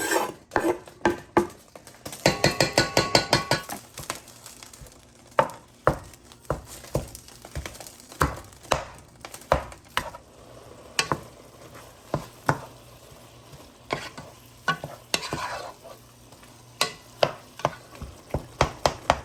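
Ground beef with diced onion and bell pepper frying and sizzling in a pan while a utensil stirs and breaks up the meat, clacking and scraping against the pan. About two seconds in comes a quick run of taps, several a second, for a second or so.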